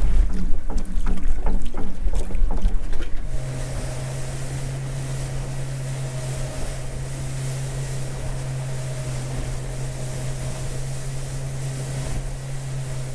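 Small boat's outboard motor running steadily at speed, with water rushing past the hull. For the first three seconds or so, wind buffets the microphone with a loud, gusty rumble. After that the sound drops to a steady, even engine hum over the hiss of the wake.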